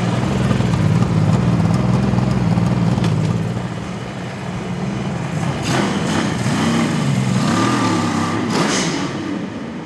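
Kawasaki H2 750 Mach IV's three-cylinder two-stroke engine running through its stock exhaust, steady at first, then revving up and down from about halfway as the motorcycle pulls away.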